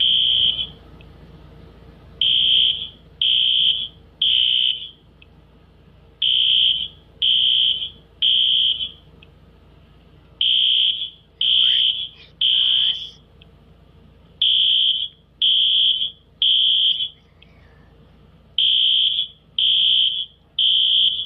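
A high-pitched electronic alarm beeping in repeated groups of three, about one beep a second with a short gap between groups: the three-beep evacuation pattern of a fire or smoke alarm. Around twelve seconds in, a brief sound rising in pitch falls between the beeps.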